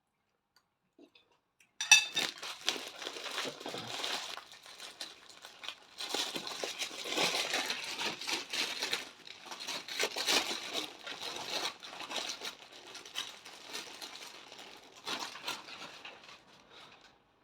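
Close-up crinkling and crunching that starts sharply about two seconds in and carries on in irregular bursts until near the end.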